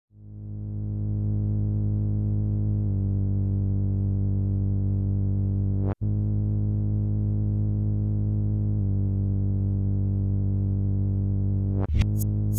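Electronic music: a low, sustained synthesizer chord fades in and holds, shifting about every six seconds, with a brief cut-out about halfway. Sharp drum-machine hits come in near the end.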